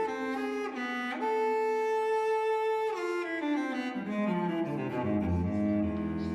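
Background music: bowed strings, cello and violin, playing slow held notes, with the line descending into low cello and double-bass notes over the last couple of seconds.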